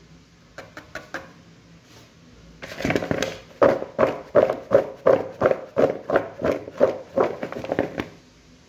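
Raw potato sticks dusted with starch being shaken and tossed in a bowl, rattling in a run of quick rhythmic strokes about three a second, after a few light taps near the start.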